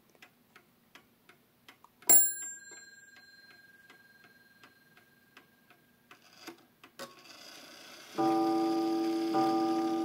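Sessions mantle clock's bell-and-gong movement, ticking about four beats a second as its hands are turned. About two seconds in, the half-hour bell strikes once and rings out. After a click, the coiled gong begins striking the hour near the end, two strokes about a second apart.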